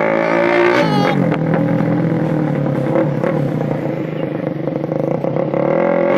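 Suzuki Raider R150 Fi motorcycle's single-cylinder four-stroke engine through an aftermarket Daeng exhaust pipe, held revved, then dropping to a steady idle about a second in and beginning to rev up again near the end.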